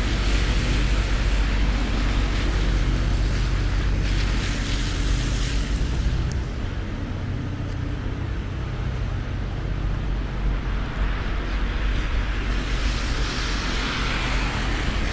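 Steady city street noise on a snowy night: a low engine hum under a hiss. The hiss eases off about six seconds in, then swells again near the end as a vehicle passes.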